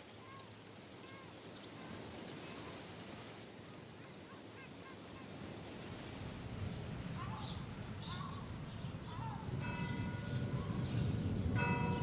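Outdoor ambience of many birds chirping, with a low rumble slowly building. Near the end come two short, honking calls, about a second and a half apart.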